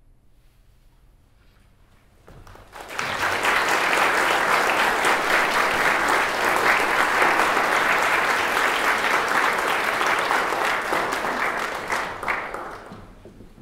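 Applause by a hall full of hands: after a moment's quiet it starts about two and a half seconds in, holds steady, and dies away near the end.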